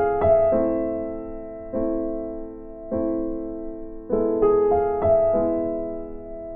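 Background music: slow piano chords, each struck and left to fade, with a new chord roughly every second.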